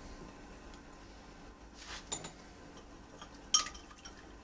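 Ice cubes in a glass jug of water cracking and settling against the glass: a couple of faint clinks about two seconds in, then one sharper, ringing clink a little past three and a half seconds.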